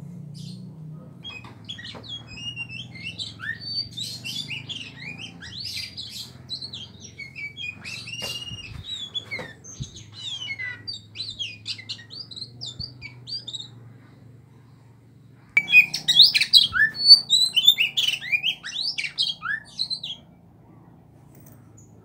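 Caged Aceh oriental magpie-robin (kacer) singing a fast, varied run of short whistled and chattering notes that rise and fall in pitch, then pausing briefly about fourteen seconds in before a louder burst of song that stops a couple of seconds before the end. A faint steady low hum sits underneath.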